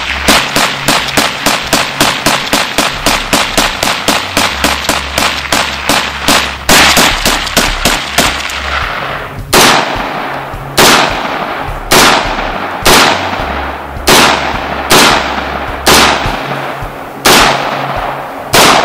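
Rapid gunfire, about five shots a second for the first nine seconds, then slowing to single shots about a second apart, each report ringing out briefly after it.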